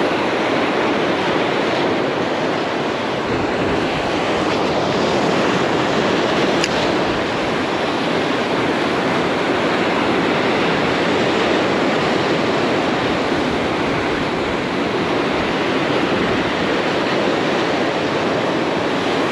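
Rough sea surf breaking and washing over a boulder shore: a steady, unbroken rush of churning white water.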